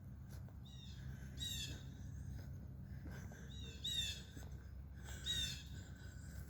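A songbird singing three short phrases of quick, repeated downward-slurred notes, over a steady low outdoor rumble.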